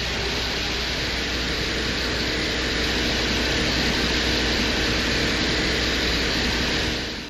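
Drilling sound presented as a Soviet Venera lander's soil drill boring into the surface of Venus: a steady, even mechanical noise over a constant low hum, easing off near the end.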